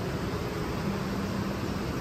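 Strong storm wind rushing steadily through the trees of a wooded hollow ahead of a thunderstorm.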